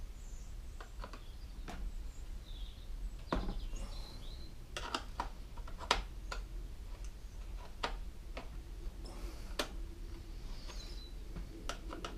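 Scattered light clicks and knocks of plastic and metal parts as a Homelite chainsaw's chain-brake assembly is worked apart by hand, the sharpest knock about six seconds in.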